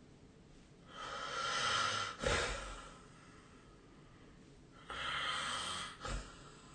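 A sleeping person snoring: two noisy breaths about four seconds apart, each lasting about a second and ending in a short, sharp snort.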